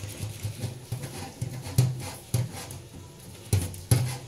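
Soapy sponge scrubbing the inside of a carbon-steel wok to wash off its factory grease, heard as irregular rubbing swishes and short knocks of the pan.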